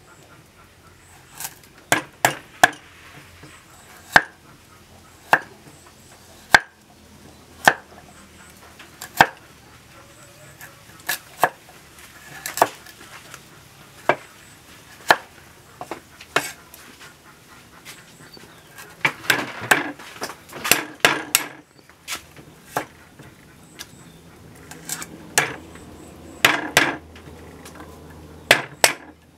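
Cleaver blade knocking on a wooden chopping board as a root is cut: sharp single chops every second or so, with quicker runs of chopping about two-thirds of the way through and again near the end.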